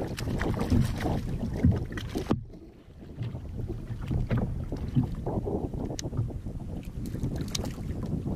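Wind buffeting the microphone and choppy water slapping against a kayak hull, an uneven rumble with scattered small ticks and knocks; it drops away briefly a little over two seconds in.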